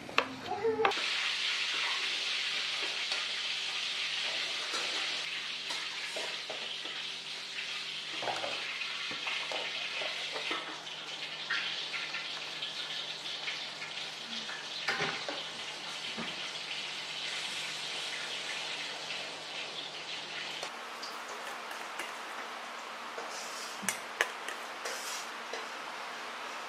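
Julienned radish and carrot being tossed by hand with wet chili seasoning for kimchi in a steel bowl and scooped into a plastic container: a steady wet, crackling rustle, with a couple of sharp clicks near the end.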